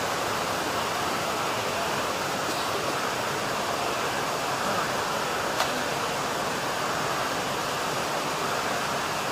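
A steady, even hiss with no engine running or cranking, and one faint click a little past halfway.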